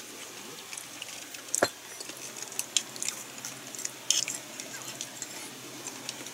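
A person eating: quiet chewing with scattered light clicks and taps of chopsticks and tableware, one sharper click about a second and a half in.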